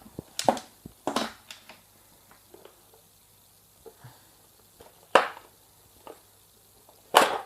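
A handful of short, sharp plastic clicks and knocks spread over several seconds, the loudest about five seconds in and near the end, as the Hoover Sprint Evo vacuum cleaner's filter is taken out.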